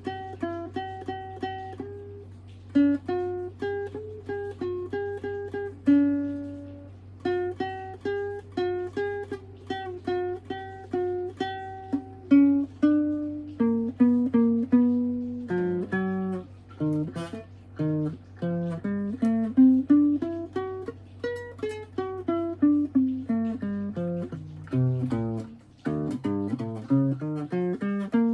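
Guitar played note by note, with single picked notes and quick rising and falling runs rather than steady strumming. A steady low hum sits underneath and stops about 25 seconds in.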